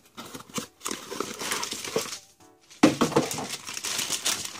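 Irregular rustling and knocking of parts and tools being handled, loudest from about three seconds in.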